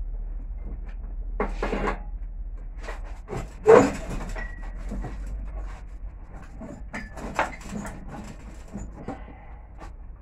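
Scrap metal pieces being handled: irregular knocks and scrapes, with one loud clank a little under four seconds in.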